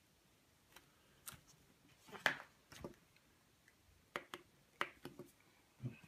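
Push buttons of a Lightwave RF wired LED dimmer switch being pressed: about ten small clicks at uneven intervals, the loudest a little over two seconds in. The two buttons are being pressed to adjust the dimmer's dimming range.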